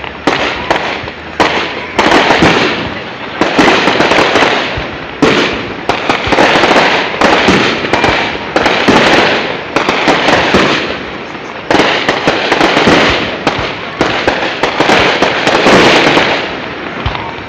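Aerial firework shells bursting in rapid succession, a sudden bang every second or so, each trailing off into a long rumble, with sharp crackling between them.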